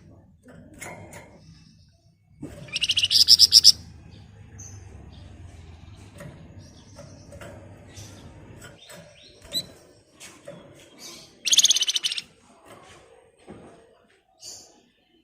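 Flamboyan songbird singing in rapid, dense 'ngebren' bursts. Two loud, high, buzzing rattle-trills of about a second each come a few seconds in and again about two-thirds through, with softer scattered chirps between.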